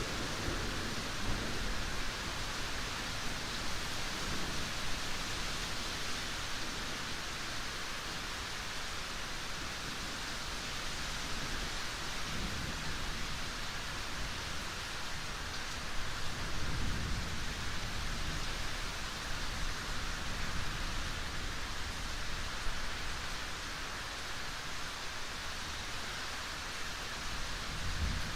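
Steady rain, a dense even hiss, with a few low swells about halfway through and again near the end.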